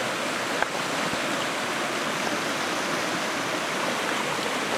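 A shallow river rushing steadily over rocks, with a couple of faint clicks in the first second or so.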